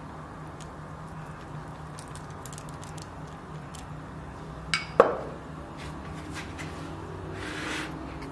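A silicone pastry brush dabs egg wash onto soft bread dough in faint scattered ticks over a steady low hum. There is a sharp double knock about five seconds in and a short hiss near the end.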